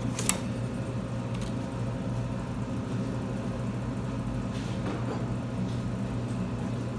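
A single sharp click shortly after the start as the BB gun is handled, then a steady low mechanical hum with a few faint knocks.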